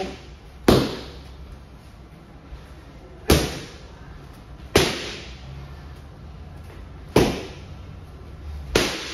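Boxing gloves punching leather focus mitts: five sharp smacks at uneven intervals, each echoing briefly in a hard-floored room.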